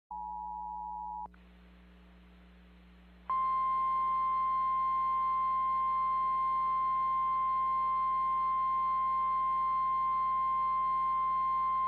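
Emergency alert tones before a tornado warning. A two-note Emergency Alert System attention signal cuts off about a second in. After a short stretch of hiss, a loud, steady single-pitch NOAA Weather Radio warning alarm tone starts about three seconds in.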